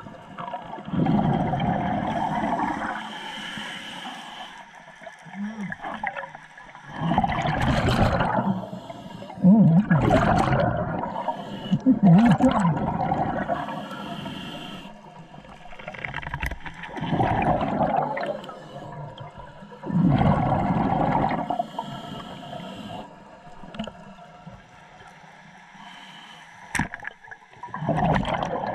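Scuba diver breathing through a regulator underwater: bursts of exhaled bubbles gurgle every few seconds, with quieter hissing inhalations between them, heard through a GoPro's underwater housing. One sharp click near the end.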